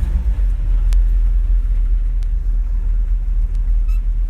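A 1955 Chevy truck's engine idling in gear, a steady low rumble, with a few faint ticks over it.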